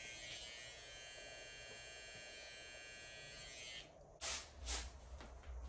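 A cordless hair trimmer runs with a steady, high buzz while cutting a taper around the ear, then stops suddenly about four seconds in. Near the end come two short, loud, rushing noises.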